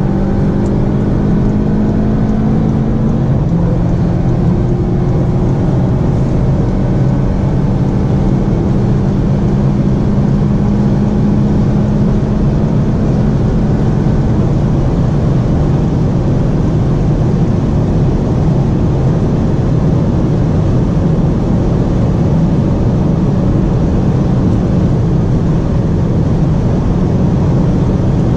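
A SEAT Leon accelerating flat out at very high motorway speed, heard from inside the cabin. The engine note climbs slowly and steadily while wind and tyre rush grows until it largely covers the engine.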